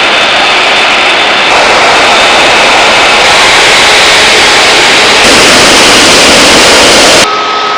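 Airliner jet engines running loud, a dense rushing roar with a thin high whine over it. The sound changes abruptly every couple of seconds, as one clip of an aircraft cuts to the next, and near the end it drops to a quieter clip with a steady high whine.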